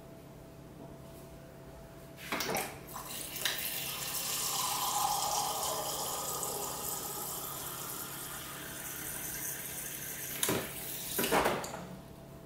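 Water from a refrigerator door dispenser pouring steadily into a ceramic mug for about eight seconds. Sharp clicks sound as the dispenser paddle is pressed at the start and released near the end.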